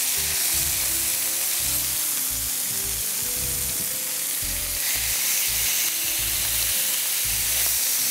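Beef steaks sizzling as they sear in a hot grill pan: a steady frying hiss.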